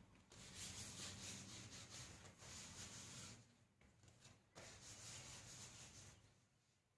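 Banana leaves rustling and rubbing as they are handled and folded by hand, faintly, in two stretches: about three seconds, a pause of about a second, then about a second and a half more.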